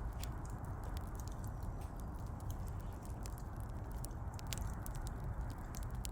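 Wood fire crackling: irregular sharp pops and snaps over a steady low rumble of the burning logs.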